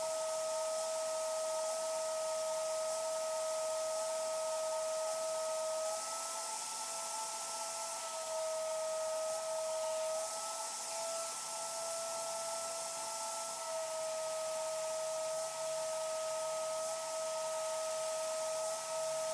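A tool running continuously: a steady high whine with a hiss, the pitch shifting slightly now and then.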